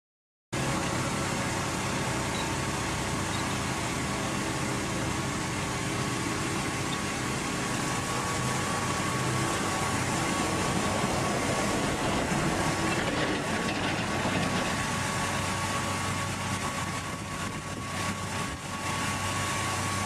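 Steady running of a power roller screed's drive motor, with a constant thin whine over a low hum, as its tube rolls across wet concrete.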